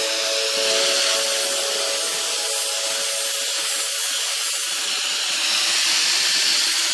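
A power tool sanding a car rim: a steady, hissy rasp of abrasive on metal.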